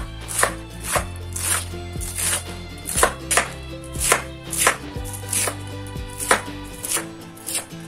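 Knife chopping cabbage on a wooden cutting board: a series of crisp chops, the blade striking the board about once or twice a second.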